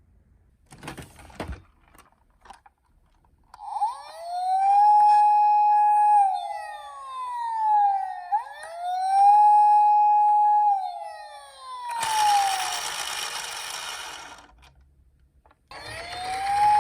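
Toy ambulance's electronic siren wailing through two cycles, each rising quickly, holding a steady high tone for about two seconds, then gliding slowly down. A couple of seconds of rushing noise follow, and another siren starts rising near the end.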